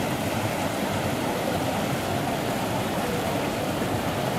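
Underwater massage jets in a spa pool churning the water: a steady, unbroken rush of water.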